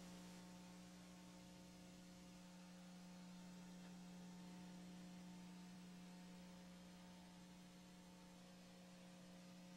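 Near silence: a faint steady electrical hum over light hiss.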